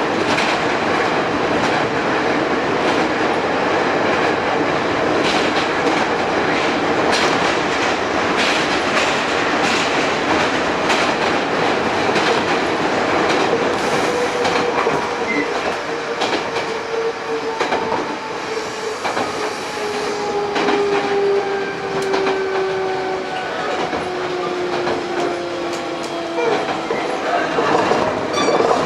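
Running sound inside a Hankyu 8000 series car with Toshiba GTO-VVVF inverter control: wheels clicking over rail joints over a steady rumble. From about halfway in, the inverter's whine slides steadily down in pitch as the train slows.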